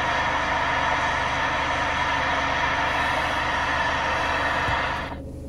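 Steady hiss of static from a CB radio speaker, starting abruptly and cutting off abruptly about five seconds in, over the low hum of the vehicle's engine.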